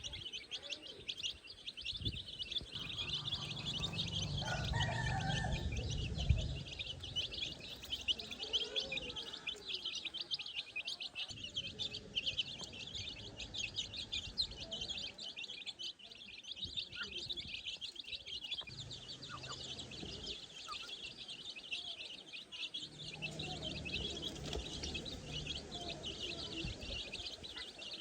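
A flock of baby chicks peeping continuously, many short high chirps overlapping, with a low rumble coming and going underneath.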